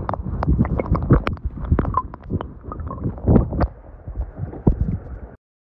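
River current heard through a submerged camera: a muffled rush with many irregular knocks and clicks, cutting off suddenly near the end.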